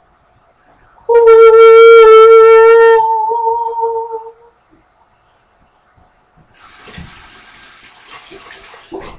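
A loud, high, steady held note starting about a second in, lasting about two seconds and then fading away. A soft hiss follows for a couple of seconds near the end.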